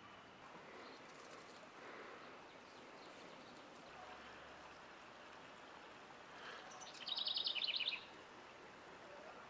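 Faint outdoor ambience, then about seven seconds in a loud, rapid, high-pitched bird trill lasting about a second.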